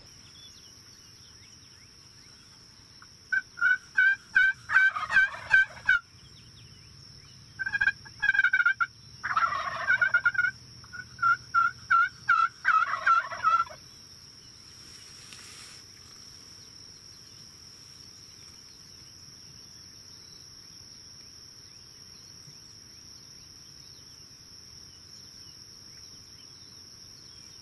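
Wild turkeys calling: four bursts of rapid yelping notes, about four a second, with gobbles rolling in among them, spread over roughly ten seconds starting a few seconds in.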